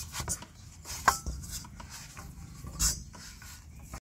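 Hands kneading tapioca-starch dough in a stainless steel bowl: the dough rubs and presses against the metal, with a few sharper knocks about a second in and near three seconds.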